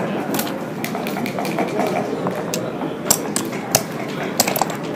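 Backgammon checkers clacking as they are moved and set down on the board, several short sharp clicks, most in the second half, over a murmur of voices in a busy hall.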